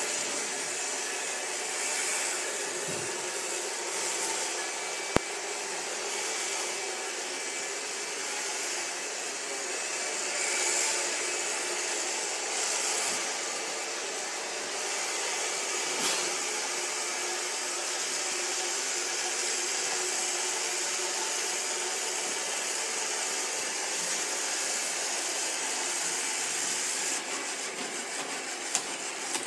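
Dirt Devil Fusion robot vacuum running over a stone tile floor with a steady high whir. A few sharp clicks break in, about five seconds in, midway and near the end.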